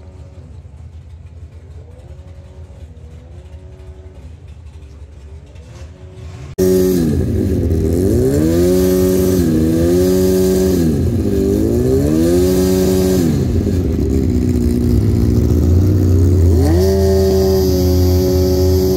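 Junior dragster engines revving up and down repeatedly on the start line, suddenly much louder about six and a half seconds in, then held at steady high revs near the end.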